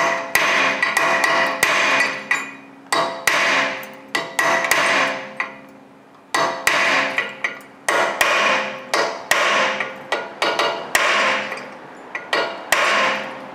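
Hammer blows on a hand impact driver seated in the tight Phillips-head screw that holds a 2014 Hyundai Elantra's brake rotor to the hub, struck sharply to break the screw loose. There are many blows in quick runs, each ringing on briefly, with a pause of about a second midway.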